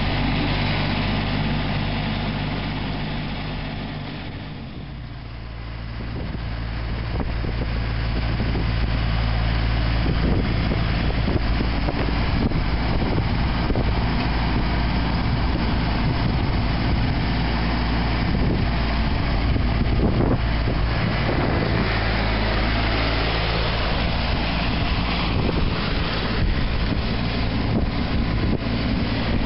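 Ford CM224's 24 hp Shibaura three-cylinder diesel engine running steadily. It fades briefly about five seconds in, then picks up again and runs on.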